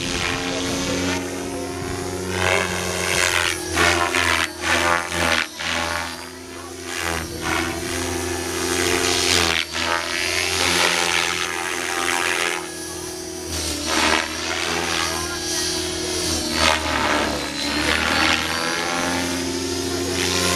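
Align T-Rex 600E electric RC helicopter flying 3D aerobatics: its rotor blades whoosh in repeated swelling, sweeping surges as it flips and turns, loudest a few seconds in. Music plays underneath.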